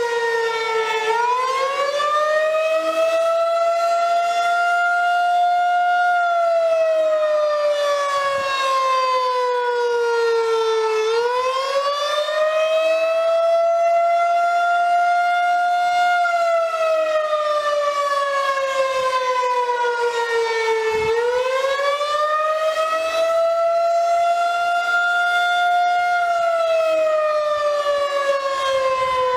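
Outdoor tornado warning siren with a single rotating horn, sounding a wail: its pitch climbs and falls in a slow cycle about every ten seconds, dipping sharply at the low point before rising again.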